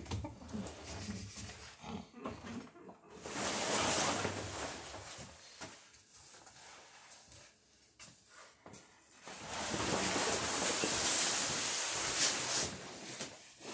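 Stiff sailcloth rustling and crinkling as a large sail panel is gathered up and dragged off a sewing-machine table, in two long spells, about three seconds in and again from about halfway through to near the end.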